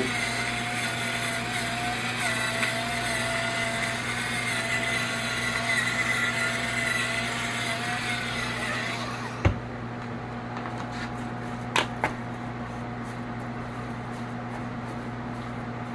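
Battery-powered electric pepper mill grinding with a steady whine for about nine seconds, then cutting off. A knock follows, then two light clicks a couple of seconds later.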